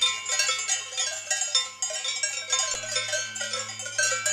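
Cowbells on a herd of grazing cattle, many bells clanging at once in an irregular, overlapping jangle as the cows move and crop grass.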